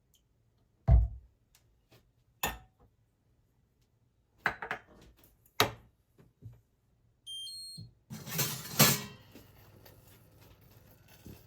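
Kitchen handling sounds: a few separate knocks of things being set down, then a short run of high electronic beeps at changing pitches from a kitchen appliance, followed by a clattering rustle and a low steady background.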